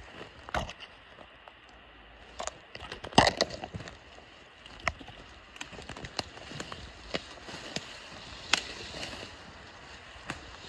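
Footsteps pushing through dense forest undergrowth, with dry twigs and brush cracking and snapping at irregular moments. The loudest cluster of cracks comes about three seconds in.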